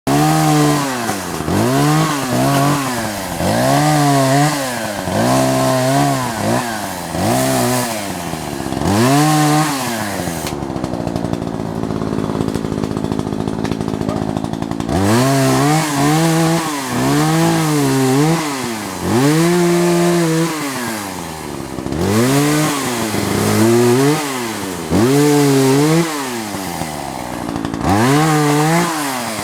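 Two-stroke chainsaw cutting fallen coast redwood, its engine revved up and down about once a second. It drops to a steady idle for a few seconds in the middle, then revs again.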